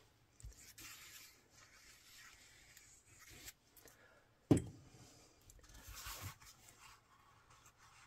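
Glue stick rubbed along the edge of a sheet of cardstock, a faint scraping and rubbing for a few seconds. A single sharp click about halfway through, then faint rustling of the card being handled.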